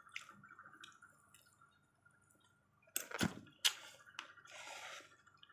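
Wet mouth sounds of someone chewing food, with sharp clicks and scrapes of a metal fork and spoon against a styrofoam food container about three seconds in. A faint steady high hum runs underneath.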